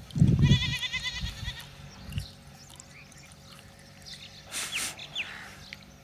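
A high, quavering bleat beginning about half a second in and lasting about a second, over a brief low rumble. Two short, falling chirps come near the end.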